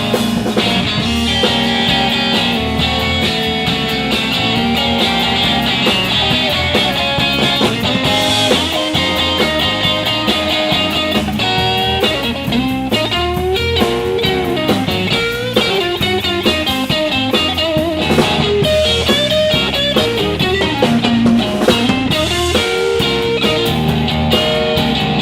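Live blues-rock band playing an instrumental break: an electric guitar lead with bent, sliding notes over bass and drums.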